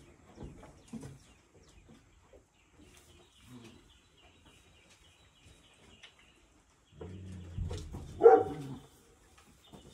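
An animal call: from about seven seconds in, a low drawn-out call that rises to a louder, higher cry about a second later, over a faint steady high trill that starts about three seconds in.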